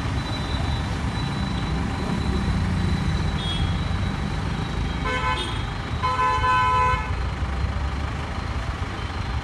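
Steady rumble of city street traffic, with a vehicle horn honking twice: a short toot about five seconds in and a longer honk of about a second just after.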